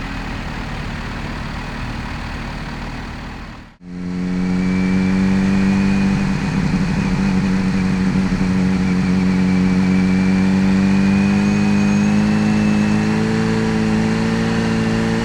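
Kawasaki Z H2's supercharged inline-four engine running under way. The sound cuts out briefly about four seconds in, then the engine pulls with a steady, slowly rising note and a faint high supercharger whine above it.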